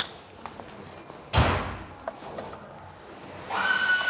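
Hand work in a car's engine bay: one heavy knock of a tool or part against metal about a second and a half in, with a few light clicks. Near the end a steady high whistling tone starts and holds.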